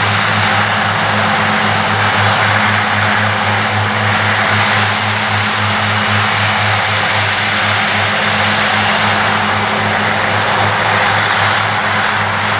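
Claas Cougar 1400 self-propelled mower working a meadow. Its diesel engine runs steadily under load as a constant low hum, with an even hiss from the mowing units cutting grass.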